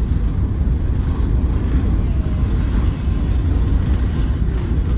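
Wind buffeting the microphone on the open deck of a moving car ferry: a heavy, unsteady low rumble with no clear tone.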